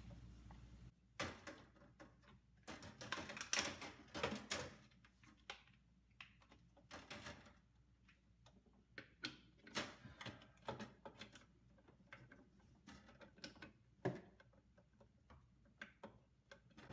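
Plastic parts of an ice maker being handled and fitted together: scattered soft clicks, taps and rustles as a replacement plastic ice tray is slid and pressed into place in the ice maker assembly.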